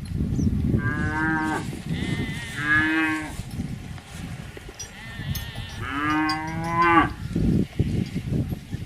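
An animal calling three times, each a drawn-out pitched call of about a second, the last one the longest, over a low rumbling background noise.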